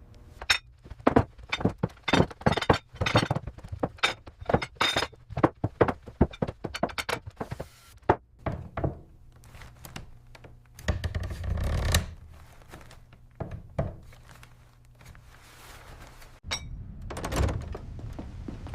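A rapid run of hard knocks and thunks, several a second, for about nine seconds, then a denser rumbling burst around eleven seconds in.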